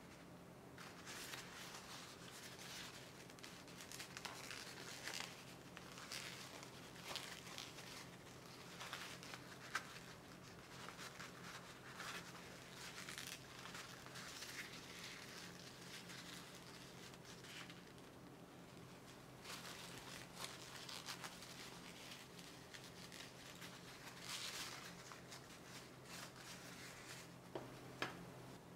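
Kitchen paper towel rustling and crinkling in repeated bursts as it is crumpled and rubbed over a warmed wax-seal melting spoon, wiping off the leftover sealing wax, with a couple of light clicks.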